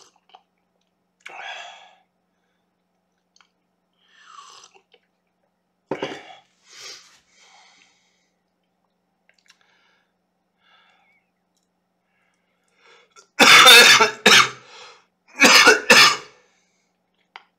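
A man coughing hard, in two loud fits about two seconds apart near the end, after a few faint short sounds.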